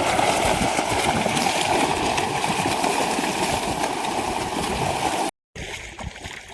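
Loud rushing, gurgling water for about five seconds that cuts off abruptly, followed after a brief gap by a quieter water sound.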